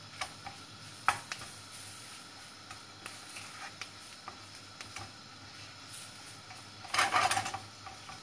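Wooden spatula stirring and scraping flour-coated green peppers around a nonstick frying pan as the flour is toasted, with scattered light taps and a louder run of scraping about seven seconds in. A faint steady sizzle runs underneath.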